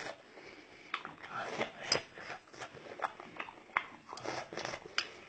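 A person chewing stir-fried silkworm pupae, a string of irregular short crunches and wet mouth clicks.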